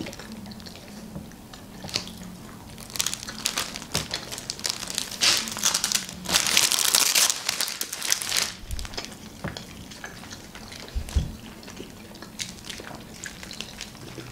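Clear plastic film crinkling and rustling as sheets of sticky sour fruit leather (pastila) are peeled off it and handled, densest for about two seconds midway, with scattered small crackles throughout.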